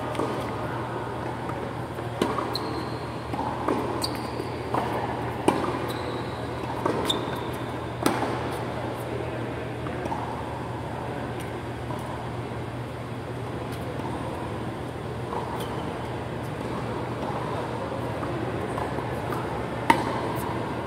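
Tennis rally on a hard court: sharp pops of the ball off the racket and the court every second or so for the first eight seconds, then a lull until one more forehand hit near the end. A steady low fan hum runs underneath.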